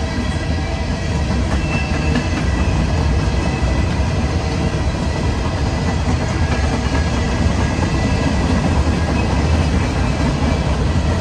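Freight train of steel coal hopper cars rolling past: a loud, steady rumble and clatter of wheels on rail, with faint steady high tones over it.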